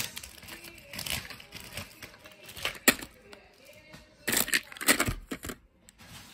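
Plastic candy wrappers crinkling and rustling as wrapped fun-size candy is picked through and shifted in a pile. There are sharp crackles, the loudest a little before three seconds in and a run of them between four and five seconds.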